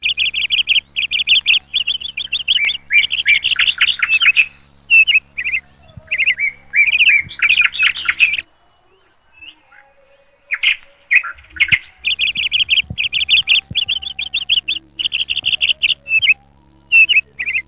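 Small birds chirping and twittering in quick, repeated downward-sweeping notes, with a faint steady low hum underneath. It stops abruptly about eight seconds in and starts again about four seconds later.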